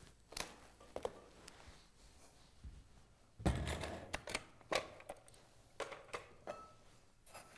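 A plastic sugar canister being taken down from a wire shelf and set on the counter with a dull thud about three and a half seconds in, then its lid being worked open with small clicks and knocks.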